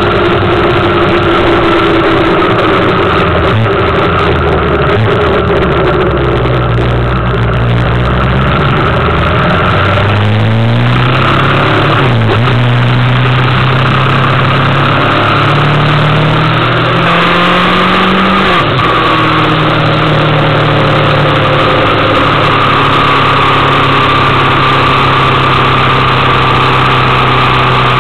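Suzuki GSX750F motorcycle's inline-four engine under way, over steady wind and road noise. Its note climbs about a third of the way in, dips at a gear change, climbs again, then drops suddenly at a second gear change about two-thirds through and holds steady after that.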